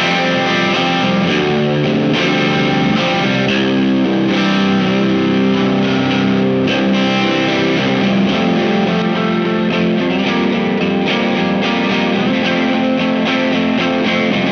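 Electric guitar (a Jazzmaster tuned down to C standard) played continuously with a driven, distorted tone through a Visual Sound Jekyll & Hyde overdrive/distortion pedal, chords and riffs with frequent note changes.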